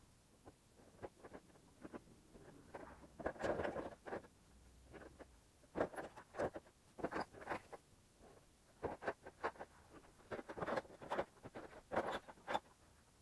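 Quick, irregular short scrapes and knocks, coming in bunches with brief gaps between them.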